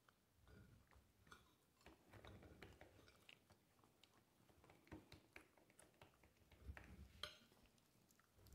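Faint chewing and biting of a small dog eating a piece of food, with a few soft clicks and scrapes of a knife and fork cutting on a plate.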